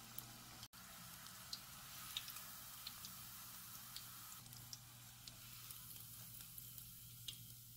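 Churro-batter-wrapped sausages deep-frying in hot oil: a faint, steady sizzle with scattered small pops and crackles.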